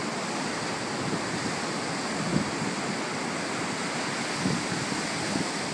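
Ocean surf breaking and washing up a sand beach: a steady rushing hiss of water.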